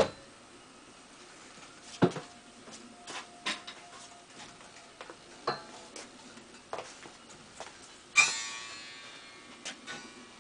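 Scattered knocks and clacks from handling the metal bow frame of a hot-wire foam cutter, with one loud metallic clank about eight seconds in that rings on for a couple of seconds.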